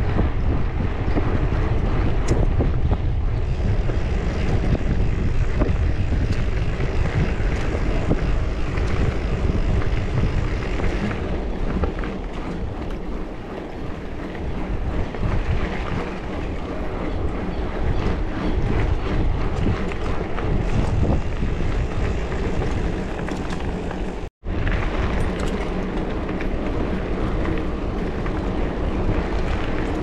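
Wind buffeting the microphone of a mountain-bike rider on the move: a steady, loud low rush with no clear tones. It cuts out for an instant about 24 seconds in, then carries on.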